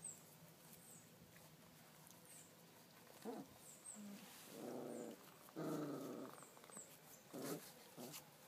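Four-week-old Doberman puppies growling in play: a few short growls about three seconds in, then two longer ones around the middle and another short one near the end.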